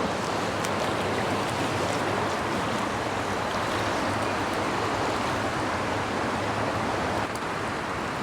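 Shallow, fast-running stream water rushing steadily, an even, unbroken wash of sound.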